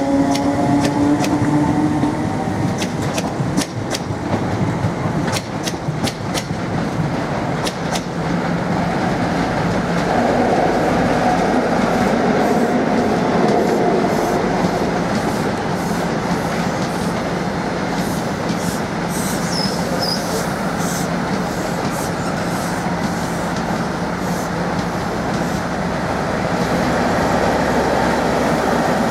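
A train running through the station with a steady rumble, its wheels clicking over rail joints during the first several seconds. A rising whine sounds at the start, and a brief high squeal comes about two-thirds of the way through.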